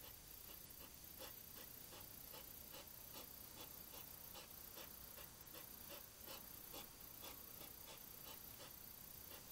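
Faint, rapid clicking and crunching, about two to three small clicks a second, typical of a hedgehog chewing dry food, over the steady hiss of a trail camera's microphone.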